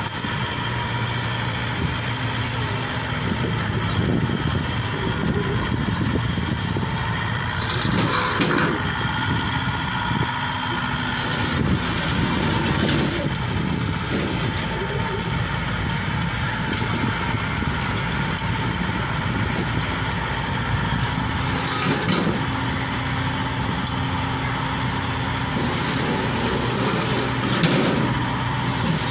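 Tanikaya Megatron HT88 tracked combine harvester's engine running steadily as the machine drives down steel loading ramps and onto the road, with a few knocks along the way.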